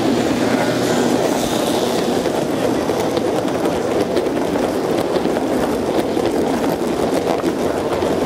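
Gauge 1 model train of bogie open wagons rolling past close by, the metal wheels running on the rails with a steady rumble and a rapid clatter of clicks over the rail joints.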